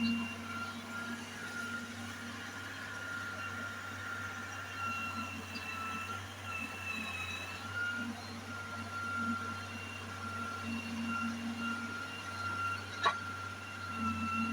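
Daewoo excavator's diesel engine running steadily under work, with a steady high whine over it and a single sharp click about thirteen seconds in.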